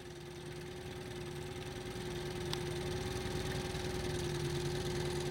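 Outboard motor of a small motorboat running with a steady hum, growing gradually louder.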